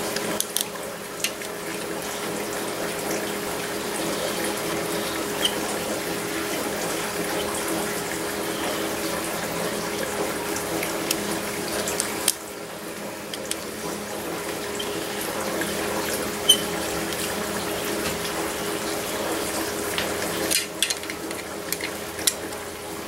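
A steady rushing noise with a low hum runs throughout, dropping briefly about halfway. Over it come a few light metallic clicks and taps as small tapered pipe plugs are run into a Farmall touch control housing with a T-handle Allen wrench.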